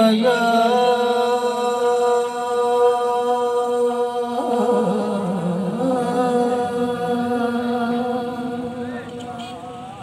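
Unaccompanied male voice singing a naat in long, drawn-out notes through a microphone and loudspeaker. About halfway through a new phrase begins with a wavering pitch, and the voice fades near the end.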